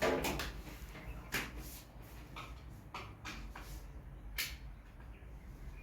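A brief rustle, then several light, separate knocks and clicks of things being handled and set down, about five over a few seconds, over a low steady hum.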